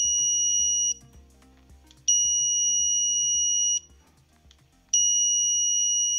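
Dog Trace X30T GPS dog collar sounding its acoustic recall signal, used to call the dog back: long, steady high-pitched beeps, each lasting under two seconds with about a second's pause between them. One beep stops about a second in, the next starts about two seconds in, and a third starts about five seconds in.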